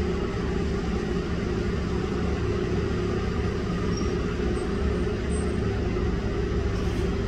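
Container crane hoist machinery running with a steady hum and several constant low tones as it lowers a load on its wire ropes.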